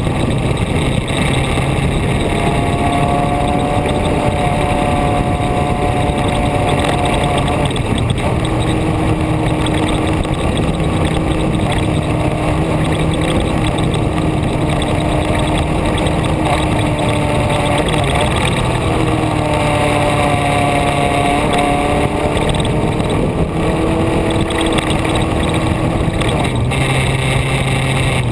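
A vehicle engine running under way, its pitch rising and falling with the revs, over steady, loud wind and road noise.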